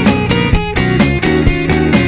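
Instrumental rock band playing: two electric guitars and an electric bass over conga hand drums, with a steady beat.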